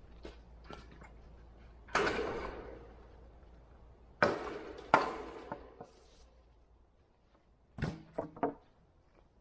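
Wire fencing being cut and pulled free. There are three loud sudden clatters about two, four and five seconds in, each dying away over about a second, then a quick run of three lighter clicks near the end.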